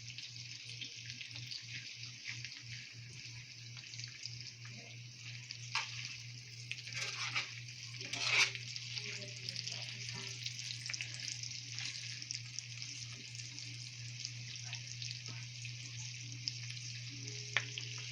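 Food frying in a pan, a steady sizzling hiss, over a steady low hum, with a few short clicks and knocks around the middle.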